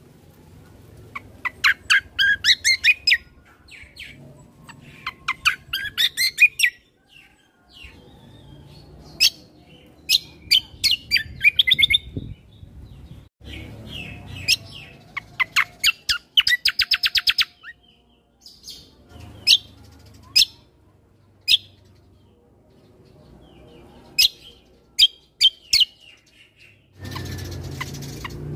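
Kecial kombo (cucak kombo) singing: quick bursts of sharp chirping notes, with short pauses between phrases and one fast, even trill about two-thirds of the way through. A faint low rumble runs underneath.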